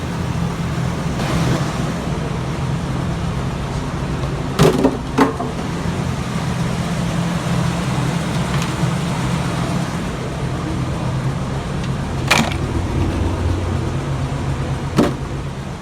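1976 Oldsmobile Omega's V8 engine idling steadily just after its oil change, with a few sharp clicks over the top.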